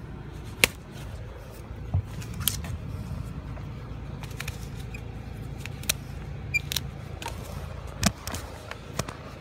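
Sharp clicks and snaps, about nine scattered irregularly, from a farrier's hoof-trimming tool cutting away diseased hoof wall, over a steady low hum.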